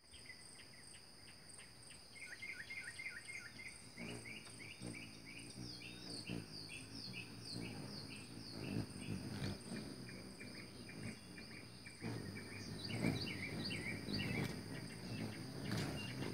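Hummingbirds at a feeder giving rapid squeaky chip calls, with the buzzing hum of their wings close by from about four seconds in. A steady high drone of insects runs underneath.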